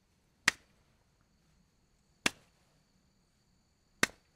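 A man slapping his knee with his hand three times, single sharp slaps about two seconds apart.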